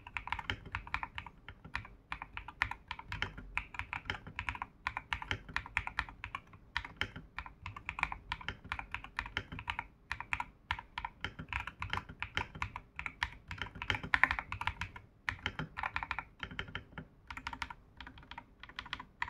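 Fast, continuous typing on an AKKO 5075S 75% mechanical keyboard fitted with quiet switches and double-shot PBT keycaps. A rapid run of key clicks with a few brief pauses.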